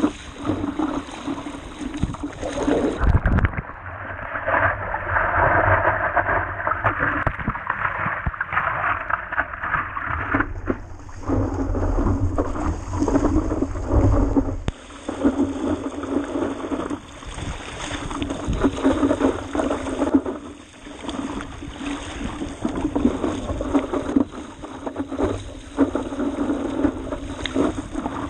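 Sea water rushing and splashing against the bow of a stand-up paddleboard (a Nahskwell Scow 12'6 downwind board) as it runs with the swell, with a steady low rumble of wind buffeting the microphone.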